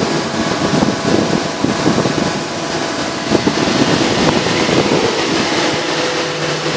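Plastic injection moulding machine running: a steady, loud mechanical noise with a faint hum, typical of the machine's hydraulic system.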